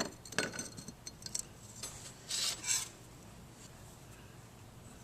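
Small steel automatic-transmission clutch parts being handled: a few light metallic clinks, then a short scraping rub about two and a half seconds in.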